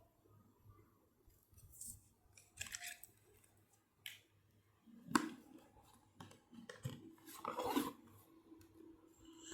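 Packaging being handled and opened by hand: short scattered scrapes and rustles, a sharp knock about five seconds in, and a longer rustle near the end.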